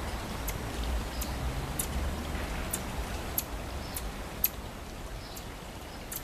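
Marmosets giving short, very high-pitched chirps, about ten scattered irregularly, one louder than the rest a little past the middle, over a low rumble of wind on the microphone.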